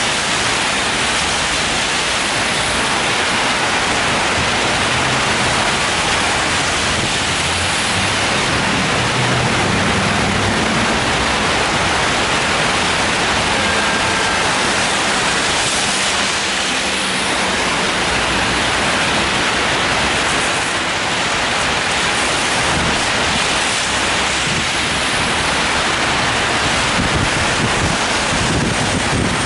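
Steady rain falling on an umbrella held just above, with traffic passing on the wet road.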